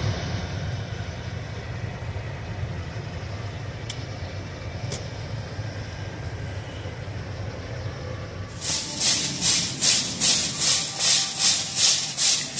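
Low steady rumble of a car cabin while driving slowly, then a shopping cart rattling loudly as it is pushed, a rhythmic clatter of a few beats a second that starts suddenly near the end.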